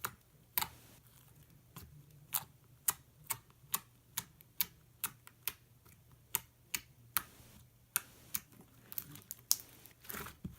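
Pink slime being worked in the hands, poked and pressed so that air pockets pop with sharp clicks, about two or three a second.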